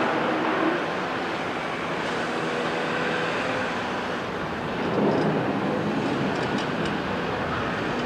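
Heavy tracked excavators' diesel engines running steadily as the CAT 374F works its boom and arm, swelling louder about five seconds in, with a few faint clinks near the end.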